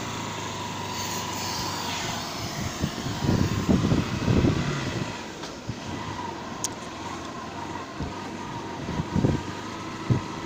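Steady running noise of a moving vehicle that the microphone rides on, with a faint constant whine and louder low rumbling gusts about three to five seconds in and again near nine seconds.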